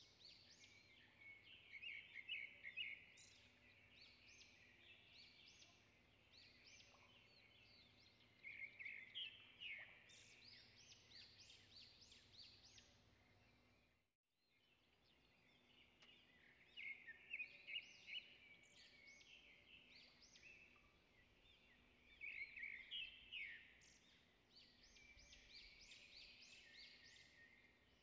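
Faint birdsong: clusters of quick, high chirps and trills coming and going, with a brief break about halfway through before the same pattern starts again.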